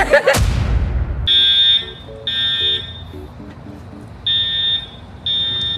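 Building fire alarm sounding loud, high-pitched beeps about half a second long, one a second: two beeps, a pause, then three more. This is the temporal-three evacuation pattern.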